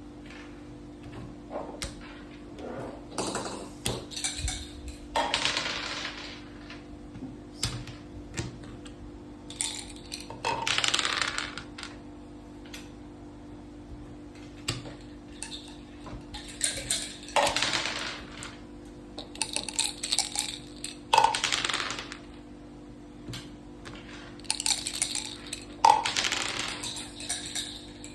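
Backgammon dice rattling and game pieces clicking against the board, in short clattering bursts every few seconds.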